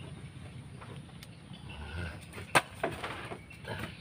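A hoe chopping into soil while digging: one sharp strike about two and a half seconds in, then a few lighter strikes.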